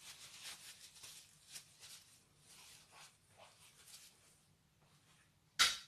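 Faint, irregular wet crackling from a foamy slime mixture of glue and foam in a glass dish, with one sharp click near the end.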